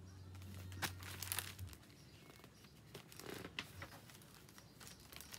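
Paper rustling and crinkling in two short bouts, typical of a page of a picture book being turned.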